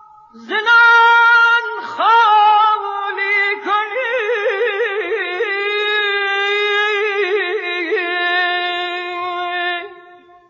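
Solo male voice singing Persian classical avaz in the Afshari mode. Long held notes are broken by fast wavering throat ornaments (tahrir) in the middle, and the voice fades out just before the end.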